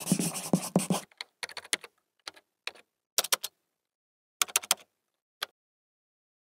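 Typing sound effect of keystroke clicks. A dense run of clicks comes in the first second, then short clusters of a few clicks with silent gaps between them, the last about five and a half seconds in.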